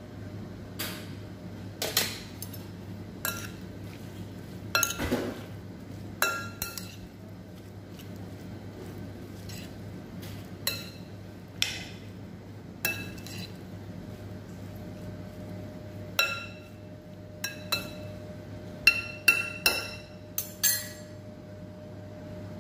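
A utensil clinking against a clear glass salad bowl as a salad is tossed with its dressing: about twenty sharp, irregular clinks, each ringing briefly, with pauses in between. A steady low hum runs underneath.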